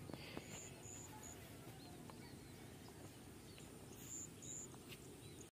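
Quiet outdoor ambience, a faint steady hiss, with a few short, high chirps: three in the first second and a half and two more about four seconds in.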